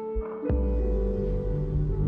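Background music: sustained ambient tones with a deep drum hit about half a second in.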